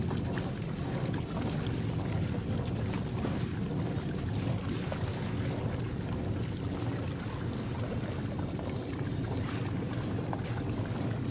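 Boat motor running steadily, with water washing against the hull.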